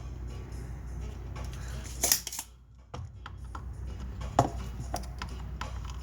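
Tools clicking and scraping on an amplifier circuit board during desoldering: a burst of scraping about two seconds in, then a few sharp clicks, over a steady low hum.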